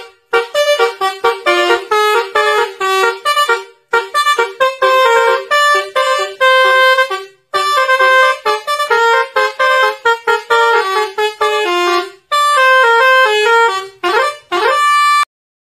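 Telolet basuri multi-tone horn playing a fast tune of short notes, in phrases of about four seconds with brief gaps between them; near the end a note slides upward and the sound cuts off suddenly.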